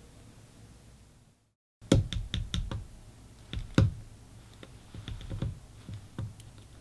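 Faint room hiss, then after a short cut to silence, a run of irregular light clicks and knocks, the loudest at the start.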